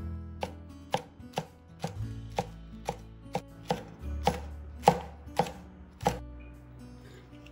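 A cleaver chopping green and red chili peppers on a plastic cutting board: about a dozen sharp knocks, roughly two a second, stopping about six seconds in. Soft background music runs underneath.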